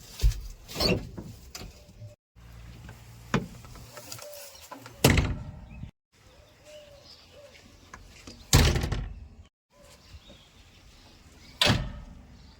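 Gravel dumped from a backhoe loader's bucket into a steel tractor trailer: about six loud crashes, each trailing off, over a low steady diesel engine hum. The sound breaks off abruptly several times.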